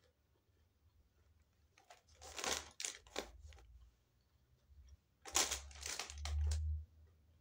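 Paper fast-food bag crinkling and tearing as it is handled, in two clusters of rustles, about two seconds in and again about five seconds in. A dull low rumble sits under the second cluster.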